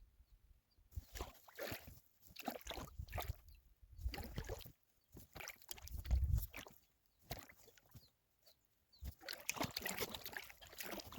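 Paddle dipping into calm water in irregular strokes, with splashes and water trickling off the blade, from a small paddled boat such as a packraft. There are a couple of low bumps about four and six seconds in.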